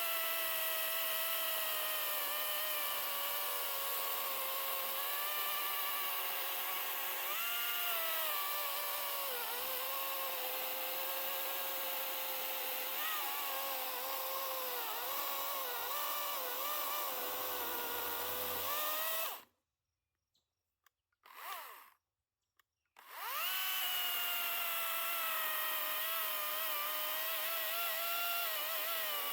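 WEN electric chainsaw running with a steady motor whine, its pitch dipping now and then as it takes load. About two-thirds through it cuts out suddenly, gives one short blip, then spins back up and runs on.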